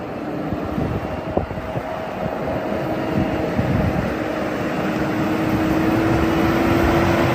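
Toy tow truck pushed along the ground, its wheels rolling with a steady gritty rumble that slowly grows louder, and a faint whine that slowly rises.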